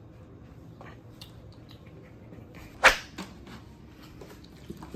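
Kitchen handling noises, with a few soft clicks and one sharp knock a little under three seconds in.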